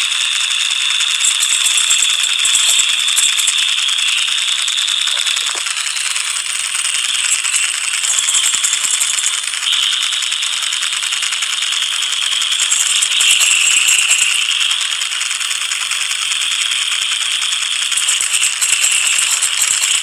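Steady, high-pitched rattling buzz with almost no deep sound beneath it; its pitch steps up or down every few seconds.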